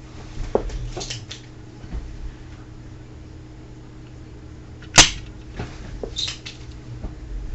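Spring-loaded desoldering pump clearing excess solder from the circuit board pads: a few soft clicks as it is handled and cocked, then one sharp snap as the plunger fires about five seconds in, followed by more clicks. A steady low electrical hum runs underneath.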